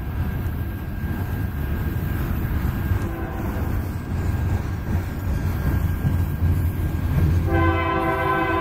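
Freight cars of a passing train rolling by close at hand with a steady low rumble. About seven and a half seconds in, the air horn of an oncoming locomotive starts blowing a sustained multi-note chord over it.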